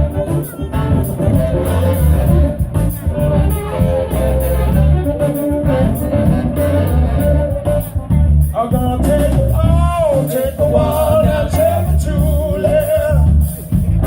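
Live blues band playing, with a pulsing bass beat and a lead melody line that bends in pitch about nine to ten seconds in.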